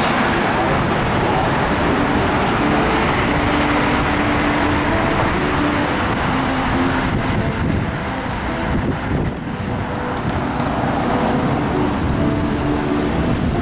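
Steady city street traffic: buses and cars driving past, a continuous rush of engines and tyres that eases slightly about eight seconds in.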